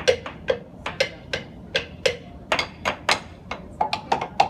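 Wooden blocks mounted on a wall, struck one after another in a drum-like beat: sharp hollow knocks with a short ring, about two to three a second, coming quicker and on a higher-pitched block near the end.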